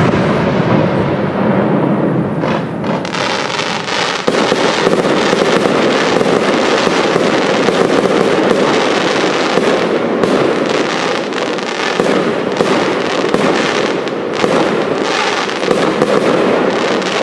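Aerial fireworks display firing continuously: many shell bursts and bangs in quick succession, with no break.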